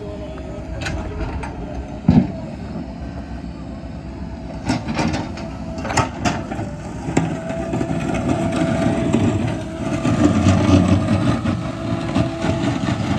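Engine of heavy road-construction machinery running steadily, with scattered sharp clanks and a loud knock about two seconds in. The engine grows louder in the second half.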